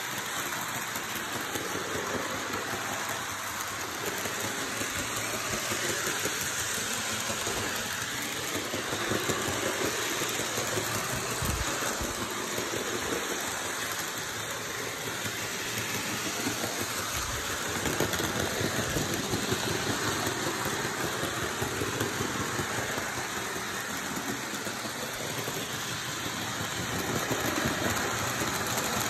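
HO-scale model trains, a Bachmann Busy Bee James among them, running around the layout track: a steady whirring rumble of small electric motors and wheels on the rails.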